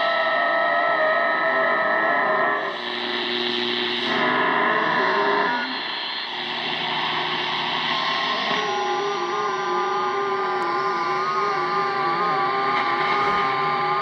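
A strange radio signal from the speaker of a Zenith Trans-Oceanic 3000-1 receiver: several steady electronic tones at once over hiss. They jump to a different set of pitches every second or two, then settle about six seconds in into a slightly wavering chord.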